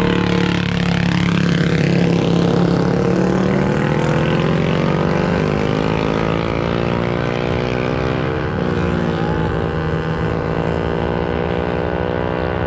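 Mini bike engine running hard through a drag-strip pass. Its pitch climbs steadily, dips once about eight and a half seconds in, then climbs again.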